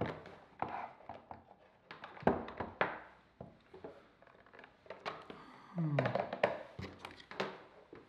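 Plastic plug adapters and a desk phone base being handled and set down on a wooden tabletop: a scattered series of knocks and clicks, with a brief low hum about three-quarters of the way through.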